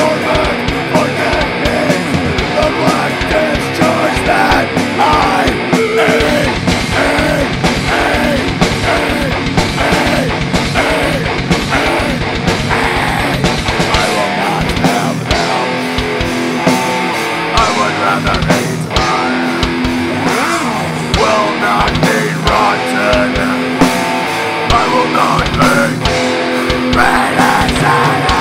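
A heavy metal band playing live, with distorted electric guitar and drums. The drumming is a fast run of low kick strokes in the first half and grows sparser about halfway through.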